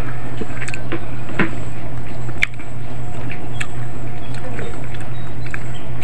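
Close-up eating sounds of cooked boxfish being picked apart by hand and chewed: scattered small clicks and wet squishes, over a steady low hum.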